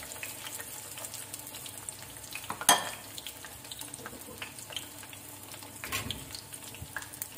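Malpua batter frying in hot ghee in a kadhai, sizzling and crackling with many small pops. A sharp knock comes about three seconds in and a duller thump near six seconds.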